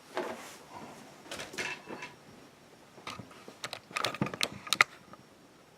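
Handling noise: scattered clicks and rustles, with a quick cluster of sharp clicks about four seconds in. There is no steady machine running.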